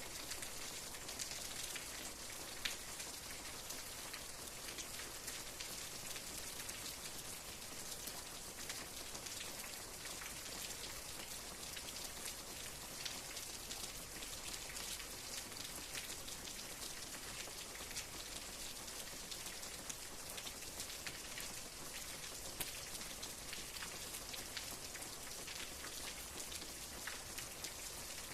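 Steady rain falling, an even hiss with many small drop ticks on a surface.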